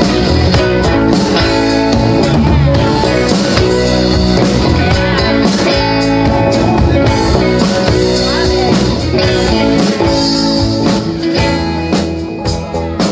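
Live rock band playing an instrumental intro: electric guitars, electric bass, drum kit and a Nord Electro keyboard together, with sliding guitar notes. The playing gets sparser near the end, with separate accented hits.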